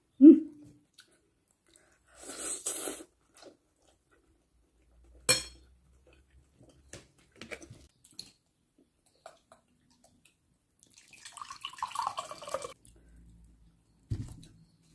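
A drink poured from a carton into a glass, about a second and a half of liquid splashing and filling near the end. Before it, scattered clicks and rustles of the carton being handled, and a low thud just before the end as something is set down.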